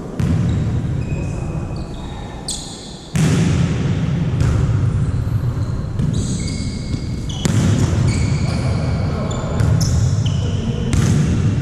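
Volleyball being played in a gym: several sharp hits of the ball a few seconds apart, many short, high squeaks of sneakers on the court floor, and a steady murmur of voices in the hall.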